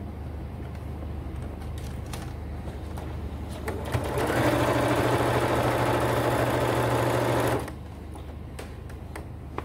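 Electric domestic sewing machine stitching the folded edge of a fabric table runner: it runs steadily at speed for about four seconds, starting about four seconds in, then stops suddenly. Before that there is only quieter handling of the fabric with a few small clicks.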